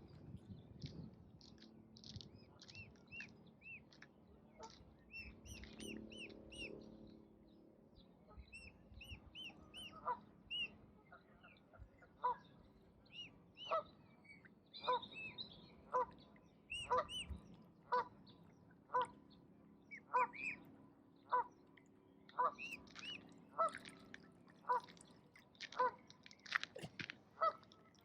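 Duck quacking in a long, regular series of short calls, a little more than one a second, starting about ten seconds in. Small songbirds chirp throughout.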